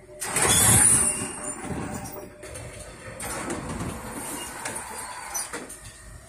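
Tram running noise heard from inside a tram. It comes in loud about a quarter second in and eases off near the end.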